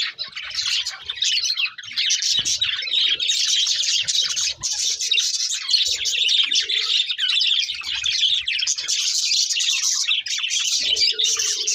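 Budgerigars chattering and warbling: a dense, unbroken stream of quick high chirps.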